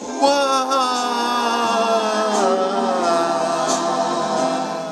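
A man singing one long wordless note that slides slowly down in pitch and then holds, with a slight vibrato.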